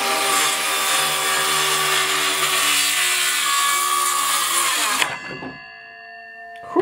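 DeWalt DCS391B 20-volt cordless circular saw running steadily as it cuts through a rough-sawn board. About five seconds in, the trigger is released and the blade winds down. A loud knock comes near the end.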